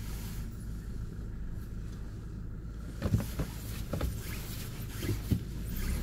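Low, steady hum of a car's engine and road noise heard from inside the vehicle as it moves slowly, with a few light knocks in the second half.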